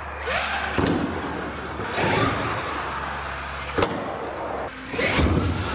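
RC monster truck's motor revving in repeated bursts, its whine rising and falling in pitch, with tyre noise on a concrete floor and a sharp knock a little before four seconds in as the truck lands from a ramp jump.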